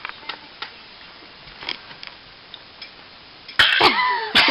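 Mostly quiet room tone with a few faint clicks, then a sudden loud vocal outburst about three and a half seconds in.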